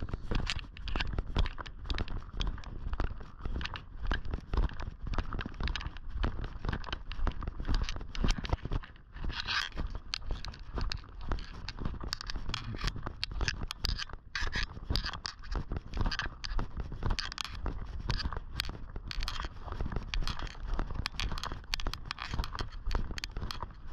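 Footsteps of a person walking along an outdoor trail: a steady run of short, irregular scuffs and clicks over a low rumble.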